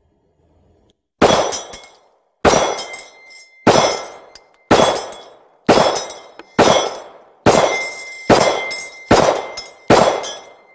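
Ruger MAX-9 9mm pistol fired ten times, about one shot a second and quickening slightly toward the end, with a steel reaction target ringing after hits.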